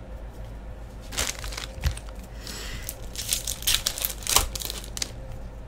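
Foil wrapper of a 2015-16 Fleer Showcase hockey card pack crinkling and tearing as it is opened by hand, a run of sharp crackles starting about a second in and stopping shortly before the end.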